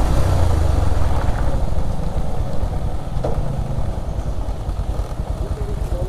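Motorcycle engine running steadily, the single-cylinder of a Bajaj Pulsar 150, with a dense low pulsing throb.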